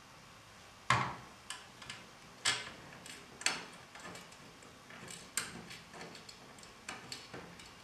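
Irregular small clicks and taps as screws and washers are fitted by hand to fix a ceiling fan blade to the motor, the loudest about a second in.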